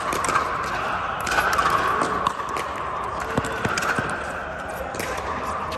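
Irregular sharp pops of pickleball paddles hitting plastic balls and balls bouncing on hard courts, a few to the second, over a steady background noise.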